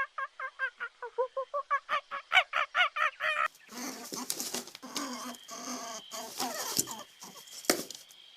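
Domestic fowl calling: a fast run of short, pitched calls, about five a second. About three and a half seconds in, this changes to a busier, noisier jumble of overlapping calls.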